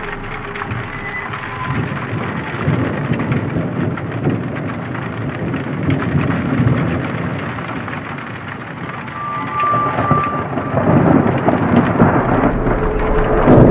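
Rain with thunder rumbling, part of a dark ambient horror background track; the thunder swells louder toward the end.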